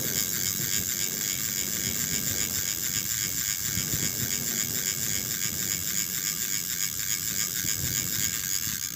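Spinning fishing reel being cranked steadily, a continuous rhythmic whirr from its gears, while reeling in a hooked fish with the rod bent under load.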